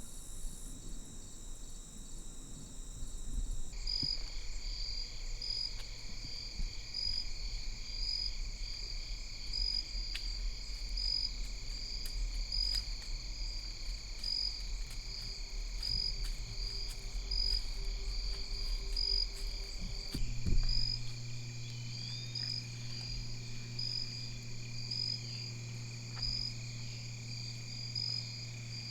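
Evening chorus of insects in the field: steady high shrill trilling, with one call pulsing about once a second. A low hum comes in about two-thirds of the way through.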